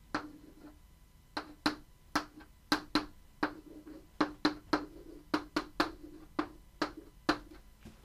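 Chalk writing on a blackboard: a quick, irregular run of sharp taps and clicks, about three a second, as each symbol is written, stopping shortly before the end.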